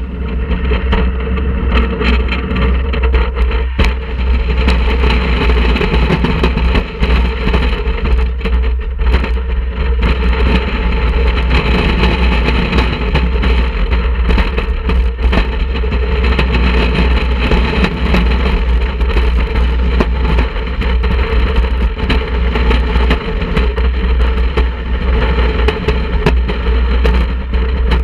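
Wooden roller coaster train running at speed along its steel-topped wooden track, a steady loud ride noise, with wind buffeting the microphone at the front of the train.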